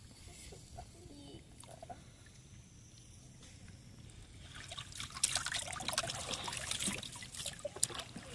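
Water splashing and trickling, starting about four and a half seconds in after a quiet start, with a few sharp little knocks among the splashes.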